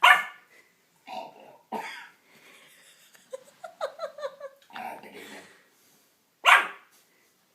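A man making strange throaty vocal noises, like burps, coughs and grunts, and a pug puppy barking back at him. Two short loud outbursts come right at the start and near the end, with a run of quick pitched grunting sounds in the middle.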